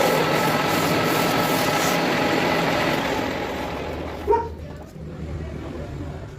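A workshop power tool running with a steady whine and grinding noise that dies away about three to four seconds in. Then a single sharp metallic clank, and a low hum.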